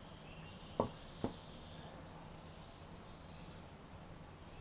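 Two small sharp clicks about half a second apart, about a second in, from handling small metal fishing tackle (hooks, split rings and pliers) at a worktable. Faint high chirps run underneath.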